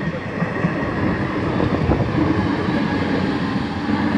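Passenger train coaches rolling past at speed: a steady rumble of steel wheels on rail, with an irregular clatter over the track joints, as the last coaches go by.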